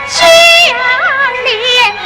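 Peking opera aria: a high female voice sings drawn-out, wavering melismatic notes over the orchestra, in two loud phrases.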